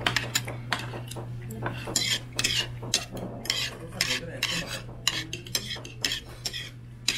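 Metal chopsticks and a metal spoon clinking and scraping against a ceramic plate again and again as leftover kimchi and cabbage are pushed together, over a steady low hum.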